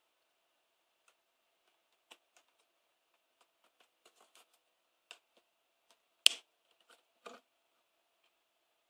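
Small hard-plastic clicks and knocks from handling an action camera and its clear waterproof housing with its latch: scattered light ticks, with one sharp loud click a little past six seconds and a duller knock about a second later.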